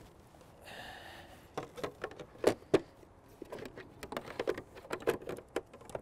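Hard plastic parts of an AquaTru countertop reverse osmosis purifier knocking and clicking as its white plastic cover is fitted on, with a brief rubbing sound about a second in and two sharper knocks a little later.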